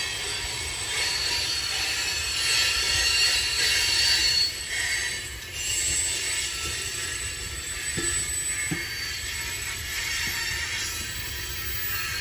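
Coal cars of a long BNSF freight train rolling past, a continuous rolling rush of steel wheels on rail with high-pitched wheel squeal.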